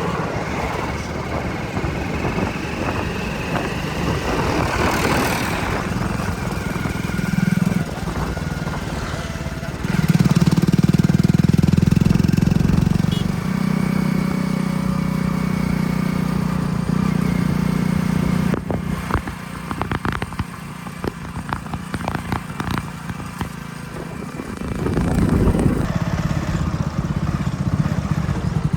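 Backhoe loader's diesel engine running with a steady low drone that grows louder from about 10 to 18 seconds in as it works under load. A scatter of knocks and clatters follows.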